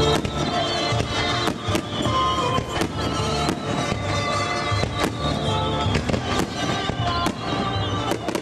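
Aerial fireworks bursting, with many sharp bangs and crackles at irregular intervals, heard over steady music.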